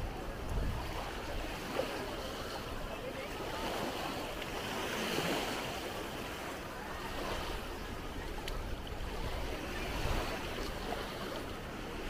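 Small Baltic Sea waves lapping at the shoreline, with wind on the microphone and faint voices from a crowded beach behind.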